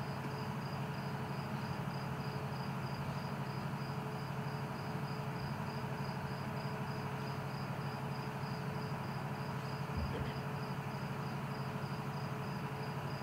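A cricket chirping steadily in an even, rapid rhythm, over a constant low hum. There is a faint knock about ten seconds in.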